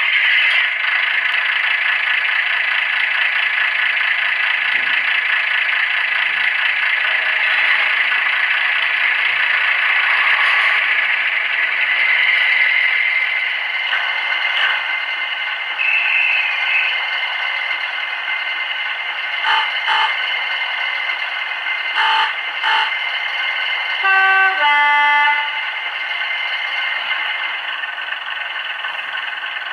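Diesel multiple unit engine sound from a Howes Models LokSound DCC decoder, played through the small speaker of a Hornby OO gauge AEC railcar model, running steadily. Near the end a two-tone horn sounds, a higher note then a lower one, after two shorter bursts a few seconds earlier.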